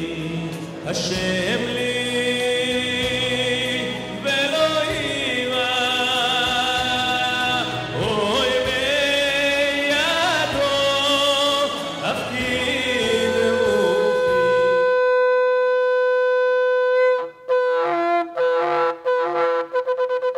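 Cantor singing a wedding processional with music. About fifteen seconds in it cuts to a shofar: one long held note, then a run of short broken blasts.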